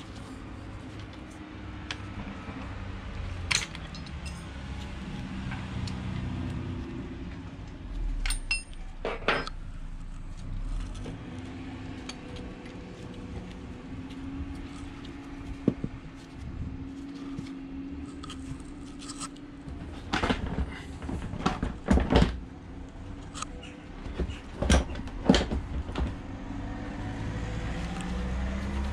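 Scattered sharp metallic clinks and knocks over a low, steady hum, with a busy cluster of them more than two thirds of the way through.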